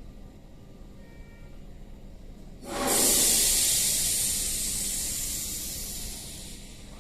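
A burst of compressed air from a Tobu 8000 series electric train: a sudden loud hiss about three seconds in that slowly fades away over some four seconds.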